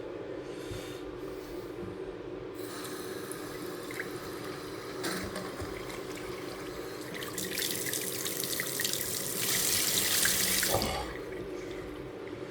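Newly installed kitchen faucet running into the sink. The water comes on a few seconds in, runs harder from about halfway, and is shut off abruptly near the end.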